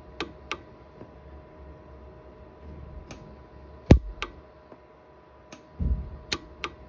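Orion 150s micro TIG pulse arc welder firing single weld pulses onto a silver ring: about eight sharp snapping clicks at irregular intervals, the loudest about four seconds in, each pulse melting 28-gauge filler wire into a porosity pit. A low thump a little before the end.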